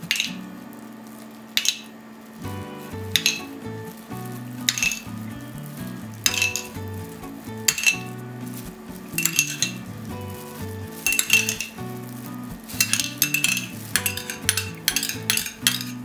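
A metal spoon clinking against a glass baking dish while tomato paste is spooned over the food: about a dozen sharp, ringing clinks at uneven intervals. Background music plays underneath.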